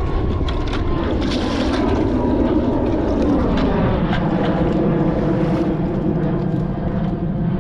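A steady engine drone whose pitch slowly falls and then rises again, over a loud low rumble.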